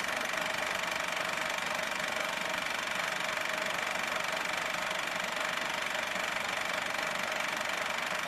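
Small engine idling steadily, an even drone with no change in pitch.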